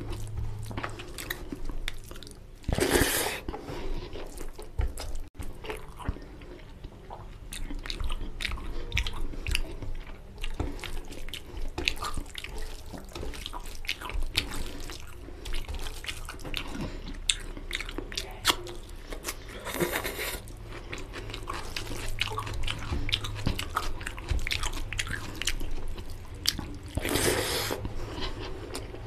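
Close-miked eating by hand: fingers mixing rice and mutton curry on a steel plate, and chewing with many small wet clicks and smacks. A few louder, longer noises come about three seconds in, around two-thirds of the way through, and near the end.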